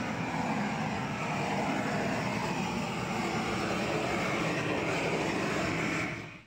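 LPG gas torch burning with a steady rushing noise as it singes the hair off a pig carcass, fading out near the end.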